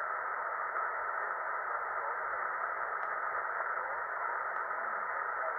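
Tecsun PL-365 portable receiver tuned to 14238 kHz in the 20 m band, putting out a steady hiss of static from its speaker in a pause between the operators' transmissions. There are two faint clicks in the second half.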